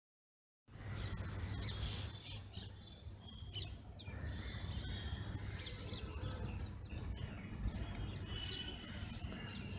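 Outdoor ambience of small birds chirping repeatedly over a low steady background hum, starting after a brief silence.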